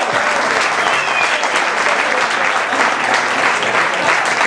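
Large crowd applauding steadily, with scattered shouts, right after a round of 'hip hip hurrah' cheers.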